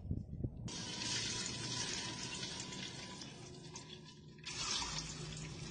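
Turmeric-coated boiled eggs frying in hot oil in a steel bowl, a steady sizzle that starts abruptly about a second in, and a fresh burst of sizzle near the end as more eggs go in.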